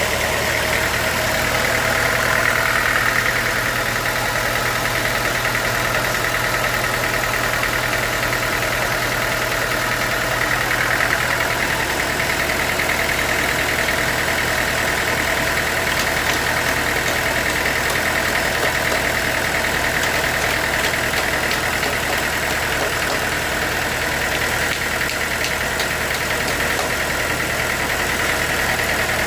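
Band sawmill running steadily: a constant engine hum with a steady high whine over it.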